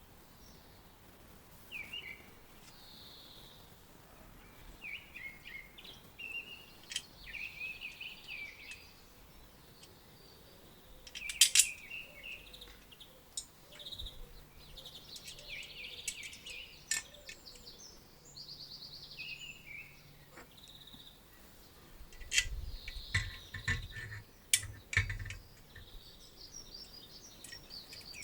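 Small birds chirping and singing in short repeated calls, with scattered sharp clicks or knocks, the loudest a double click about eleven seconds in and a cluster of clicks with dull thuds near the end.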